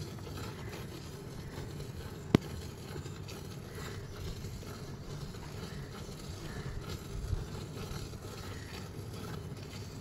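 Buffalo being milked by hand: milk streams squirting into a steel bucket already holding milk, a steady swishing. A single sharp click comes about two seconds in.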